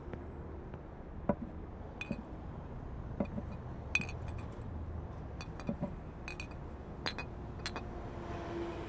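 Glass bottles clinking lightly now and then, about ten small separate clinks at irregular intervals, over a low steady hum.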